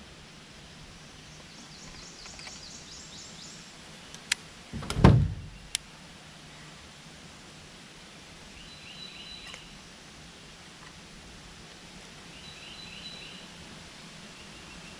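Birds chirping in short, rapid series over quiet outdoor ambience, with one loud thump about five seconds in, flanked by sharp clicks, from something knocking in the small fishing boat.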